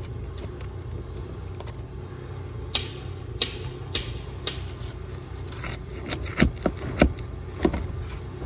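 Roofing nails being pried out from under an asphalt shingle: a few scrapes, then a run of sharp metallic clicks and knocks in the second half. A steady low rumble sits underneath.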